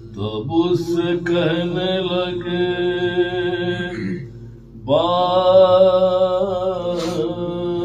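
A single voice chanting a slow, melodic devotional recitation in two long held phrases, with a short pause for breath about four seconds in, over a steady low hum.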